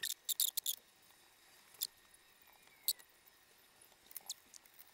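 3D-printed plastic claw parts clicking and knocking together as they are fitted by hand. There is a quick run of sharp clicks in the first second, then a few single clicks.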